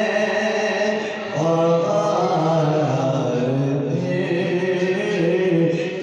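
A man singing an Urdu naat, devotional verse in praise of the Prophet, solo and unaccompanied, in long held notes that glide between pitches; a new phrase begins about a second in.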